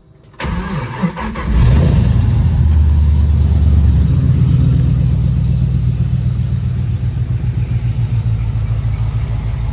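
1968 Camaro's supercharged engine cranking about half a second in and catching about a second later, then idling steadily. The idle is nice and quiet, still on the stock cam.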